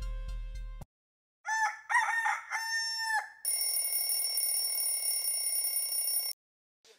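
A pitched animal-like call in several short rising parts, ending in one long held note, lasting about two seconds. It is followed by a steady high ringing tone over a hiss for about three seconds that cuts off suddenly. Background music stops just before the call.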